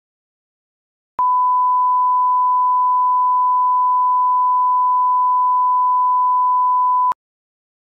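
A steady 1 kHz test tone, the 'bars and tone' beep that goes with a television colour-bar test pattern. It starts abruptly about a second in, holds one unchanging pitch for about six seconds, and cuts off with a faint click near the end.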